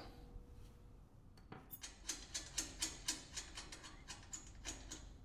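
Faint run of light metallic clicks and taps, about three to four a second, as the steel reinforcement side plate and its template bolts are handled on the snow blower housing. Before that, in the first second, a faint ring fades from the last hammer blow on the center punch.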